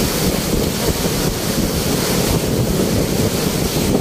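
Muddy flash-flood torrent rushing and churning, a loud, steady wash of water.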